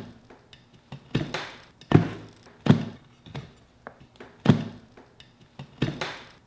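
A string of sharp thunks and knocks, roughly one a second, as tire levers are worked between a Kingsong 16X electric unicycle's tire and its rim to lever the tire off.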